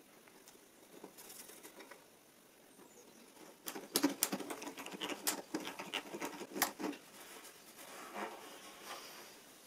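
Faint handling sounds of wooden blocks and a metal bar clamp being fitted to a workbench leg: a run of light clicks and knocks, most of them from about four to seven seconds in.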